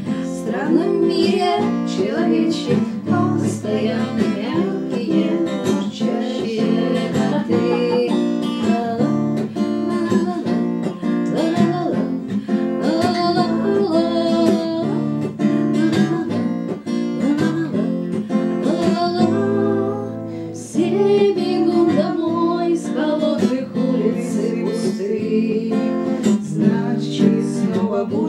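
Acoustic guitar strummed in a steady rhythm while a woman sings along.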